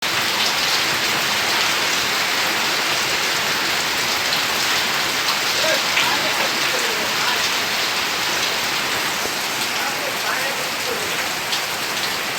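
Steady rain falling, a dense, even hiss of drops pattering on tin roofing and pond water, with many small ticks of individual drops.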